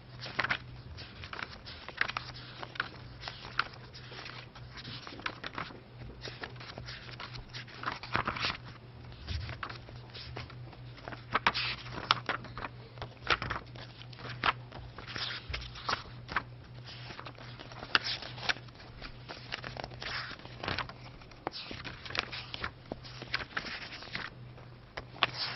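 Sheets of paper rustling and flicking as a stack of document pages is leafed through and counted, in a run of irregular crisp rustles, over a steady low hum.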